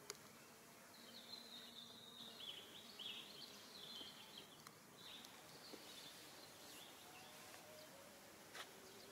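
Faint background with small birds twittering in quick, warbling chirps through the first half, and a soft click near the end.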